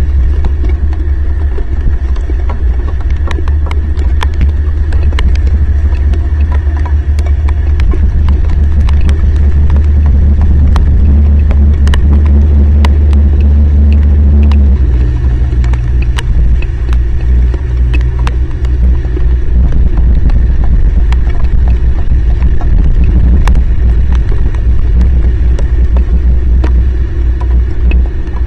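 Heavy rain, with many raindrops ticking sharply on the microphone, over a loud steady low rumble that shifts in pitch about halfway through.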